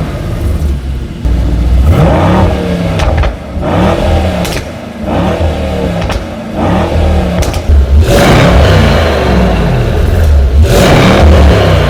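Mercedes-AMG E63S's twin-turbo V8 through an Innotech iPE stainless valved exhaust, loud, with the revs climbing and dropping again and again.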